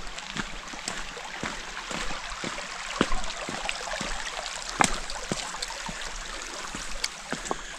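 Shallow mountain brook running over rocks, a steady rushing trickle, with a hiker's footsteps crunching and scuffing on rock and gravel; two footfalls land harder about three and five seconds in.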